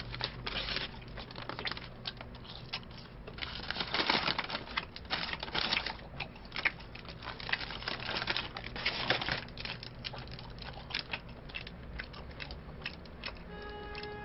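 Close-miked eating noises: crunchy chewing of a fried snack with the crackle of a food wrapper being handled, coming as irregular clicks with denser crunchy spells.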